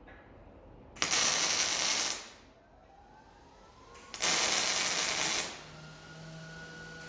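MIG welding arc crackling in two short bursts, each just over a second long, a few seconds apart. Straight afterwards the sound is judged really nice, the sign of a well-set weld.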